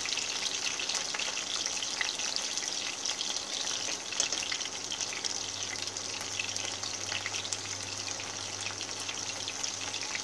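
Oil sizzling steadily around wild betel leaf (lá lốt) rolls shallow-frying over low-medium heat, with scattered small pops and crackles.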